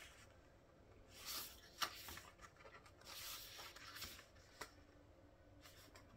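Pages of a photobook being turned by hand: faint paper rustles with a couple of sharp flicks, near 2 seconds and again after 4 seconds.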